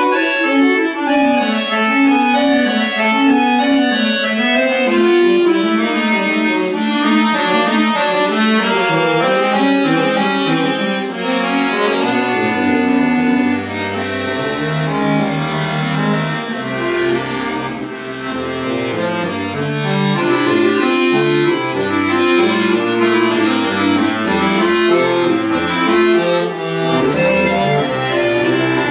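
Solo concert bayan (chromatic button accordion) playing classical music, several melodic lines moving at once in a continuous stream of notes. Deep bass notes join about twelve seconds in and carry on under the upper voices.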